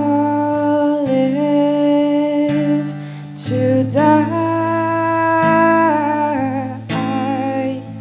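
A woman singing a slow song in long, held notes, accompanied by a strummed acoustic guitar.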